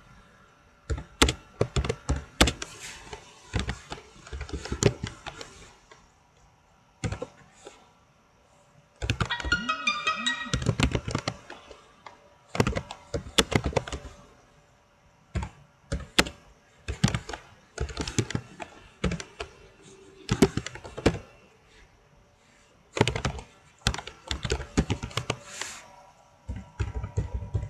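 Computer keyboard typing: bursts of quick keystrokes with short pauses between words.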